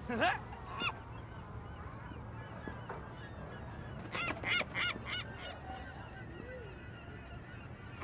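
Seagull squawks: two short cries near the start, then a quick run of about six cries about halfway through.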